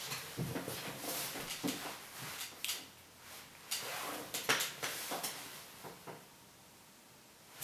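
Irregular light knocks and rustling of a person fidgeting at a table, shifting arms and clothing against the table and chair, with a quieter stretch near the end.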